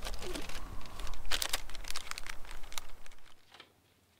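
Plastic bait bag crinkling and rustling in quick, sharp crackles as a soft-plastic bait is dug out of it, over a low wind rumble on the microphone. It all stops suddenly about three seconds in, leaving near silence.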